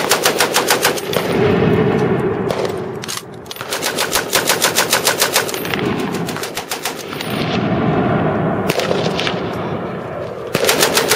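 A belt-fed, tripod-mounted machine gun firing several bursts of full-auto fire, around eight shots a second. The longest bursts last about two seconds, with short pauses between them filled by a lower, continuous din.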